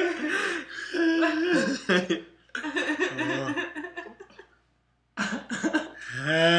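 Young men laughing and chuckling in fits, with a brief complete break a little past the middle.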